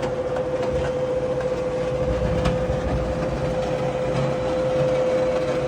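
Blanchard 20-36 rotary surface grinder's table traverse drive running the magnetic chuck table back along its ways: a steady motor hum with a constant whine over a low rumble.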